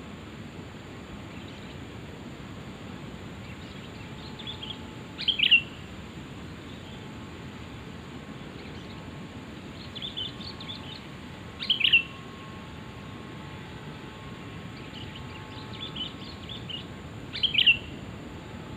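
Sooty-headed bulbul (kutilang) calling: three loud, short phrases about six seconds apart, each led in by softer chattering notes, over a steady background hiss.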